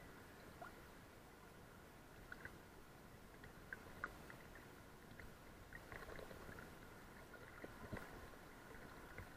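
Faint, muffled river water lapping and gurgling right at a microphone riding at the surface, with scattered small ticks and plops, the sharpest about four and eight seconds in, over a thin steady hiss.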